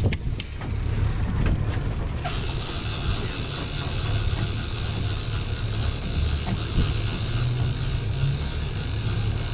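Boat engine running at trolling speed, a steady low rumble with wind and water noise. About two seconds in, a steady high hiss or whir joins it and holds on.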